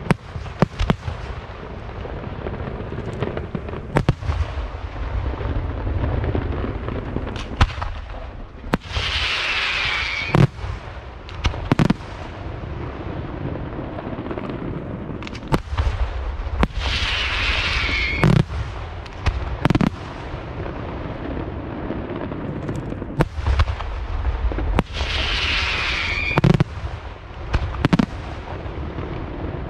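Aerial fireworks display: a steady run of shell bursts and bangs over a low rolling rumble. Three times, a whistle falls in pitch for a second or so and ends in a loud bang.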